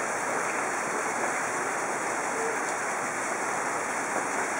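Steady rushing hiss of water, even and unbroken, with no distinct splashes or drips standing out.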